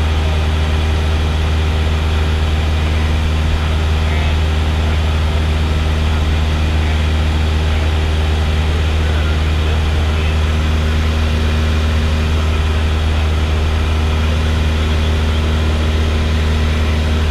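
Piston engine and propeller of a light single-engine high-wing plane in cruise flight, heard inside the cockpit as a steady, unchanging drone with a strong deep hum.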